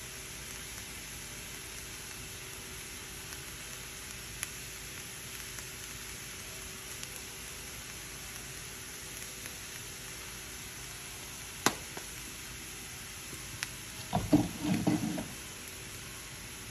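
Ground meat sizzling gently in a frying pan, a steady low hiss with a few isolated clicks. A short burst of louder knocks comes near the end.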